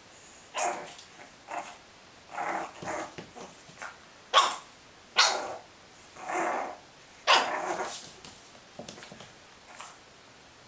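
A dog barking: a string of short barks at irregular intervals, the loudest ones around the middle.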